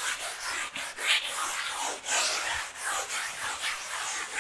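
Hand-sanding a dried glycero primer coat on a wall with fine-grit (180) sandpaper: a dry, scratchy rubbing in repeated strokes, along with palms sweeping over the wall. This light sanding knocks down small bumps and fibres before the finish coat.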